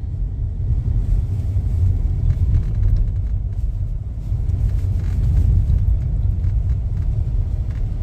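Steady low rumble of a car's engine and road noise, heard from inside the cabin while driving.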